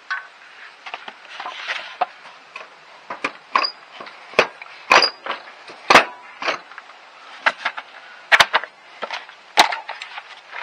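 Irregular sharp clicks and knocks, about a dozen, from hand tools and small metal parts being picked up and set down. A few carry a brief metallic ring.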